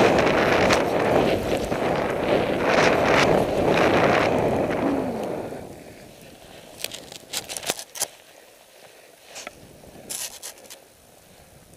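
Skiing through powder in the trees: a loud rush of air over the microphone with the hiss of skis in snow, which drops away about six seconds in. After that come a few scattered sharp clicks and taps.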